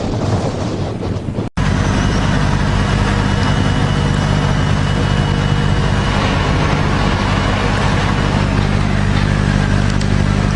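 Wind and water noise, then an abrupt cut about a second and a half in to a loud engine running steadily with an even low drone.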